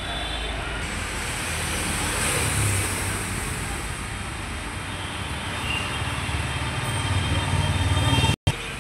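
Road traffic noise: vehicles running past in a steady rumble and hiss, cutting out for a moment near the end.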